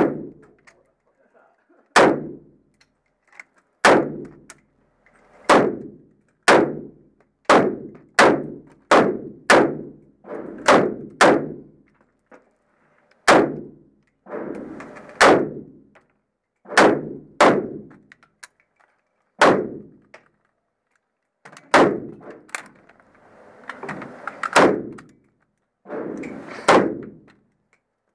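M4 carbine fired in single shots, about twenty at an uneven pace, roughly one every half second to two seconds, each shot with a short echoing tail.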